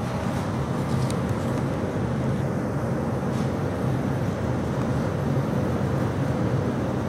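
Steady low droning hum over an even background noise, with a few faint clicks.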